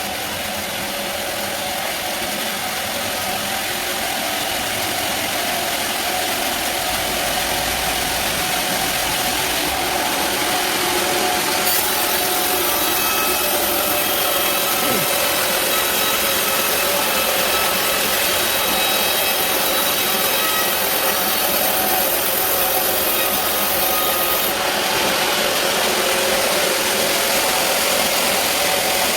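Band sawmill running steadily with its blade cutting through a large teak log, slowly getting a little louder over the first several seconds and then holding level.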